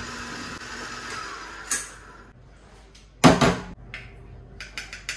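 Metal kitchenware and moka pot parts being handled on a counter: a knock, a heavier knock about three seconds in, then a run of quick light clicks, about four a second, near the end.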